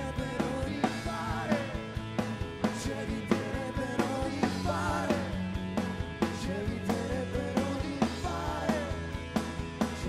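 Live rock band playing: a drum kit keeps a steady beat under electric guitar and bass guitar, with a wavering melody line on top.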